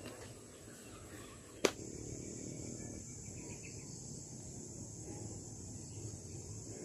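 Steady high-pitched drone of an insect chorus, with one sharp click about a second and a half in.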